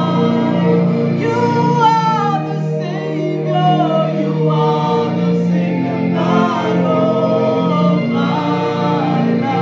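A small group singing a gospel worship song together, a woman's voice leading with sustained, gliding notes.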